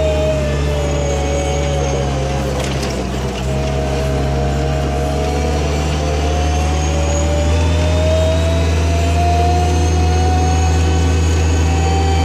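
Hoftrac compact loader driving, its engine running with a steady low hum and a drive whine that dips briefly about three seconds in, then rises steadily as the machine gathers speed.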